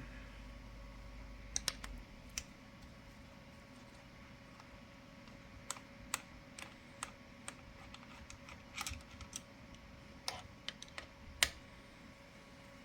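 Scattered light metallic clicks and taps, irregularly spaced, from a 4 mm Allen key working the cover screws of a reloading press and small parts being handled.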